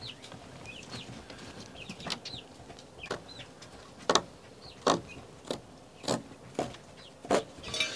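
Chicks peeping with short high chirps, over a string of sharp taps, about one a second, that are the loudest sounds.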